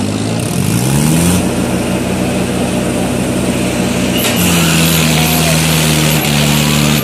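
Mahindra Arjun tractor's diesel engine revving up about a second in and then held at high revs. Its pitch drops slightly about four seconds in.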